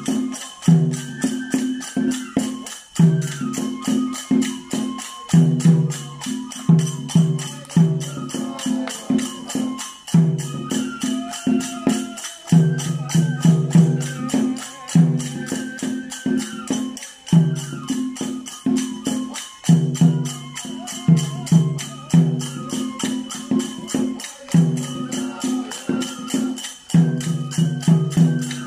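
Japanese kagura festival music: a drum beating a repeating pattern of strokes, with a stepwise flute-like melody above and a steady jingling of hand cymbals.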